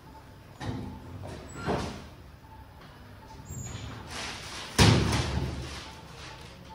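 A sudden loud thump about five seconds in, with two softer knocks in the first two seconds. Under them a patient monitor beeps faintly at regular intervals.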